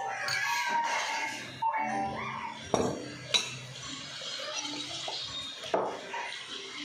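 A small drinking glass and tableware clinking: three short, sharp clinks, the last a little before six seconds in as the glass is set down on the table.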